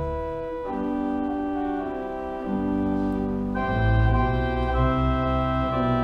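Organ music: sustained chords that change every second or two. The deep bass notes drop out just after the start and come back strongly about three and a half seconds in.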